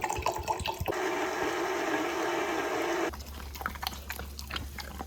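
Water running in a steady rush, starting about a second in and cutting off suddenly about three seconds in, followed by a low steady hum with a few faint clicks.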